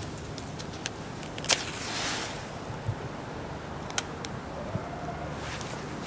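A cigarette being lit: a sharp strike about a second and a half in, followed by a brief flaring hiss, over a low steady hum. A second sharp click comes near four seconds in.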